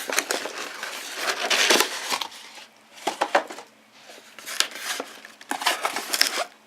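A cardboard box and its packaging being opened and unpacked by hand: rustling and crinkling with scattered clicks and knocks, in uneven bursts with short pauses.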